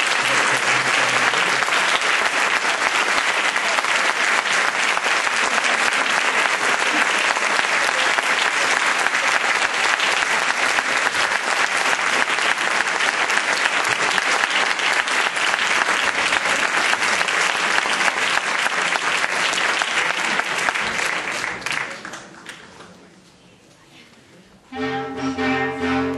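Audience applauding steadily for about twenty seconds, then dying away. About a second before the end, a clarinet ensemble comes in with a long held chord.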